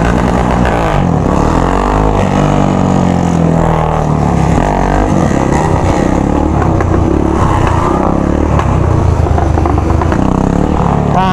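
Yamaha XT motorcycle engine with an open exhaust pipe, revving up and down repeatedly while riding, loud throughout.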